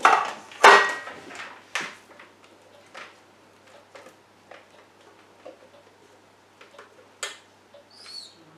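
Stainless steel mixing bowl of a Monsieur Cuisine Plus food processor clanking and knocking as it is handled, loudest in the first two seconds, then lighter, scattered taps and clicks of a spatula working cake batter out of the bowl.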